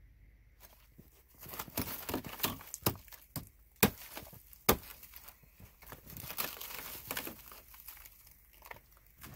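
Plastic tarp crinkling and rustling as it is handled and pulled into place, with two sharp snaps about four and five seconds in.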